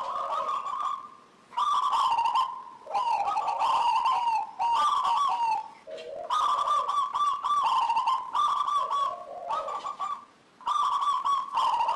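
Zebra dove (local perkutut) singing in a cage: quick strings of rolling coo notes in phrases a few seconds long, broken by short pauses between bouts.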